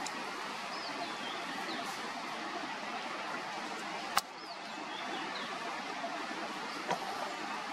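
Steady outdoor background hiss with a few faint, short, high chirps, and a single sharp click about four seconds in.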